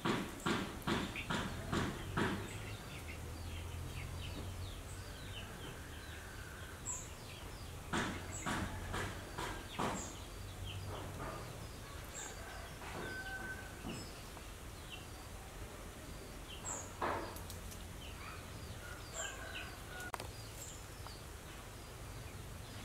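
Birds chirping outdoors, with short high calls every second or so. Over the chirping come a quick run of sharp taps in the first couple of seconds and a few single knocks later on.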